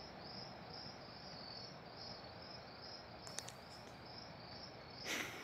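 Crickets chirping in a steady, even rhythm, about two chirps a second, over a faint hiss. A couple of short clicks come about three seconds in.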